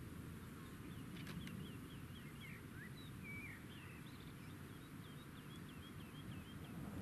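A small songbird singing rapid runs of short, repeated high chirps over a faint steady rumble of wind on the microphone.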